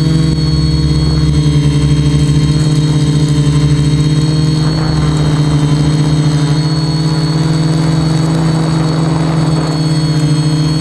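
A quadcopter's electric motors and propellers running at a steady pitch: a loud, even hum with a thin high whine above it.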